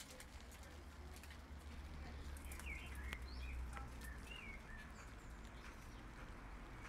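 A bird chirping several short, curving calls in the middle, over light rain dripping in scattered ticks and a steady low rumble.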